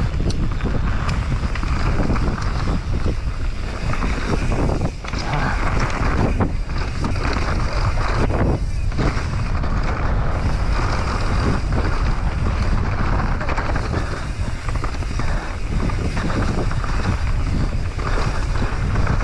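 Wind rushing over an action camera's microphone as a Propain Tyee mountain bike runs fast down a dirt singletrack, with the tyres rolling on the dirt; a steady, loud rumbling noise with brief dips.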